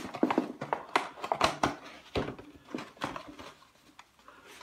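Quick clicks and rattles of small hardware being handled as a little jig pin is fished out of a box. They are busiest for the first three seconds, then thin to a few scattered ticks.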